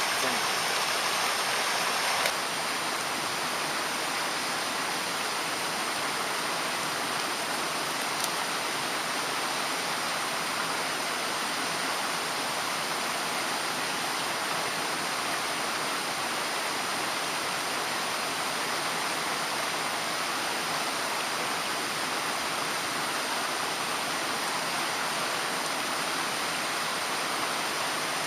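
Mountain stream rushing steadily over rocks, a continuous water noise that drops slightly in level about two seconds in.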